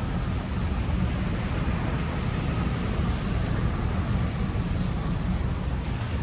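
Chevrolet Express van driving: a steady low rumble of engine and road noise, even throughout.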